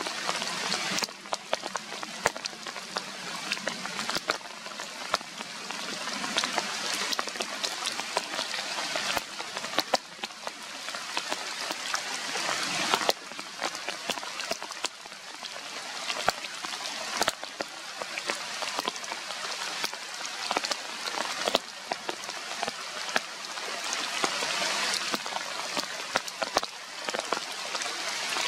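Steady rain falling on forest leaves and branches, a continuous hiss with many sharp close drops hitting.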